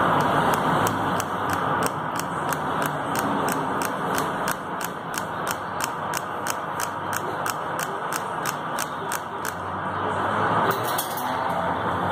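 Metal lathe running, a pulley spinning in its chuck against a ball bearing held in the toolpost, over a steady gear noise from the machine. A sharp tick comes about three times a second and stops roughly two and a half seconds before the end, followed by a brief rattle.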